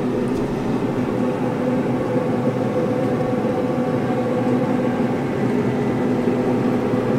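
Steady, even hum of a Pit Boss Austin XL 1000 pellet grill's combustion fan running.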